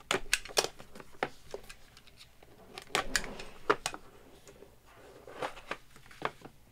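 Box cutter slitting the seal tape on a rigid cardboard box, then clicks, scrapes and knocks as the box is handled and its lid lifted off. There is a quick run of sharp clicks at the start, another cluster about three seconds in, and a few more near the end.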